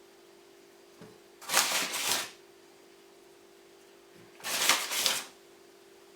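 Flour being shaken onto a worktop, two brief rustling bursts a few seconds apart, over a faint steady hum.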